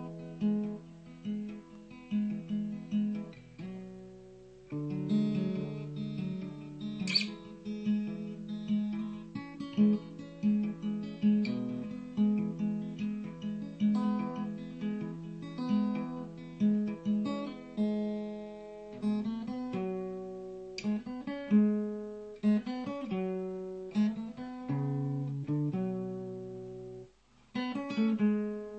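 Guitar played solo, plucked notes and strummed chords, with a short break just over a second before the end.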